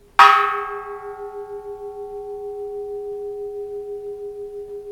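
Bronze Japanese Buddhist temple bell struck once: a bright clang whose high overtones die away within a second, leaving a long, steady, wavering hum that keeps ringing. The bell has hairline cracks that hardly spoil its long reverberation.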